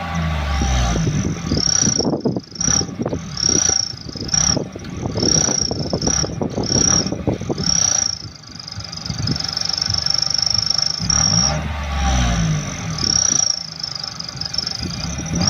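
Daihatsu Ayla's 1.0-litre three-cylinder engine revved in a string of short throttle blips. An add-on exhaust turbo whistle gives a high whistle that swells and fades with each rev and is held for a moment during a longer rev about ten seconds in.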